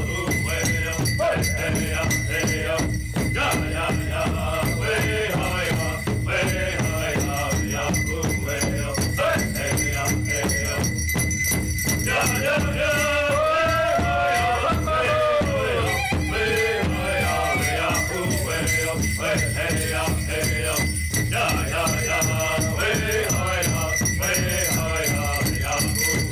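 Powwow drum group playing a men's traditional dance song: several voices singing in gliding, falling phrases over a steady beat on a large shared powwow drum, with the jingling of dancers' bells.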